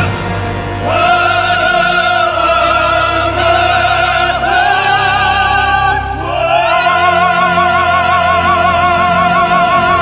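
Background music: an operatic singer holding long notes with vibrato over a steady low accompaniment, moving to new notes a few times and sliding up into a higher held note past the middle.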